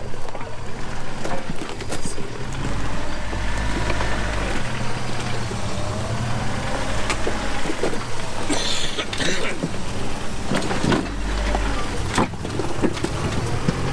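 A rock-crawling 4x4's engine running at low, shifting revs as the truck creeps down a rocky ledge, with sharp knocks from tyres and chassis meeting rock at times, most in the second half.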